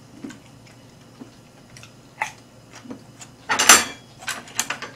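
Light clicks and taps of metal tongs against a tabletop griddle plate, with one louder clattering scrape about three and a half seconds in.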